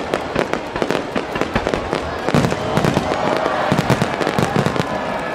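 Aerial firework shells bursting with dense rapid crackling, and several low booms about midway through.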